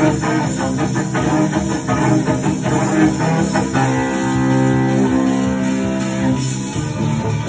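A cello bowed in a metal-style piece, with quick driving strokes. About four seconds in it moves to long held notes, and the choppy rhythm returns near the end.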